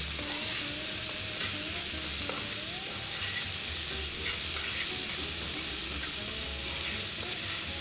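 Blanched chicory with garlic and chili pepper frying in oil in an aluminium frying pan, a steady sizzle, while it is stirred and tossed with metal tongs.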